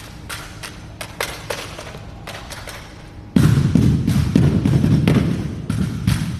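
Drill rifles being handled in a rifle drill routine: sharp slaps and clacks at irregular intervals. About three seconds in, a sudden loud low rumble takes over for nearly three seconds, with a few more clacks through it.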